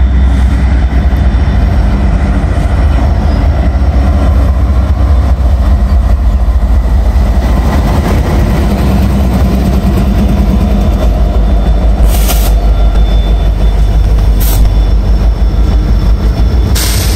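Diesel locomotives of a CN freight train, including a trailing CSX GP38-2, passing close by under power: a loud, steady low engine rumble with a few sharp clacks from the wheels and cars partway through and near the end.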